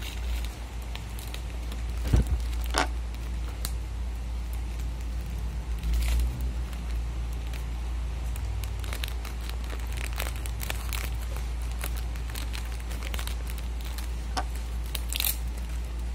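Paper being handled and crinkled during craft work, with scattered short crackles and clicks, over a steady low hum.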